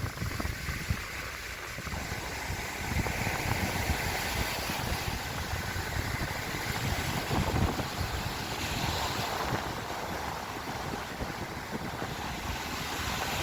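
Wind buffeting the microphone in uneven low rumbles, over a steady rushing of wind and surf.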